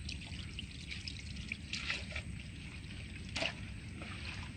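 Faint trickling and dripping water with scattered small clicks and crackles, over a steady low rumble; two sharper ticks stand out about two and three and a half seconds in.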